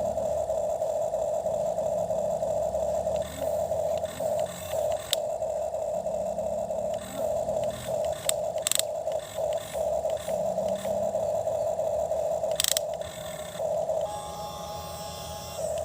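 Toy excavator's small electric motor whining at a steady pitch, dipping briefly now and then, with short clicks and scraping as it digs through soil.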